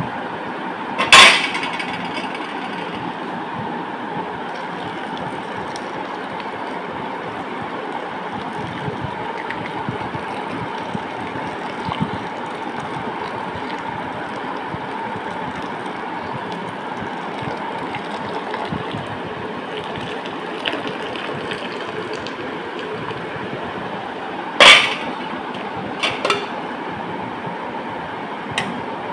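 Sharp clinks of a steel spoon against a plate, one loud strike about a second in and a few more close together near the end, over a steady background hiss.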